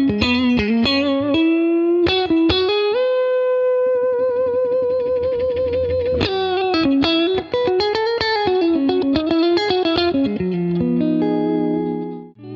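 Electric guitar lead played through a Cali76 Stacked Edition compressor pedal: quick legato runs, then a long held note with vibrato that keeps its volume, then more runs. Near the end a held chord sounds and cuts off suddenly.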